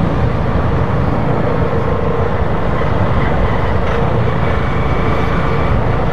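Small, low-powered motorcycle engine running steadily while riding at cruising speed, with wind rushing over the microphone.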